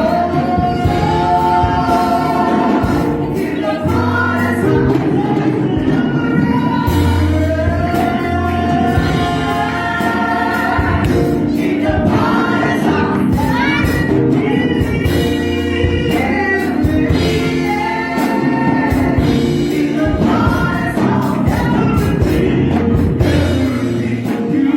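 A choir singing a song with instrumental accompaniment: held, gliding vocal lines over a steady bass.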